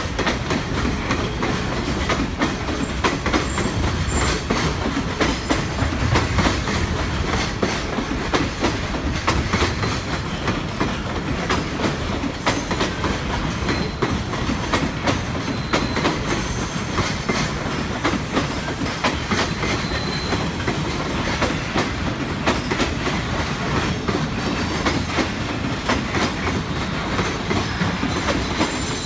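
JR Freight Koki container flat wagons rolling past, steel wheels clattering continuously over rail joints and points with a low rumble, and short faint wheel squeals now and then.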